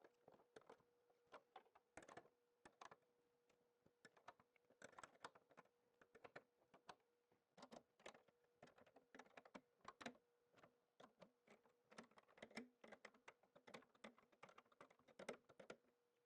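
Faint, irregular clicking and light metallic ticks of hand wrenches and a socket on small bolts and nuts as a pair of 5/16 bolts is tightened, some clicks coming in quick runs, over a faint steady hum.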